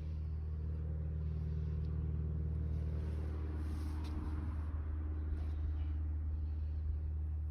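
A motor vehicle passing by, growing louder to a peak about four seconds in and then fading, over a steady low hum.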